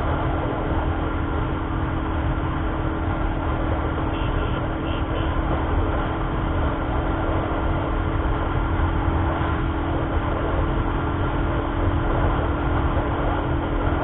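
Royal Enfield Thunderbird 350's single-cylinder engine running steadily at high speed under a top-speed run, its pitch holding level, with heavy wind rumble on the microphone.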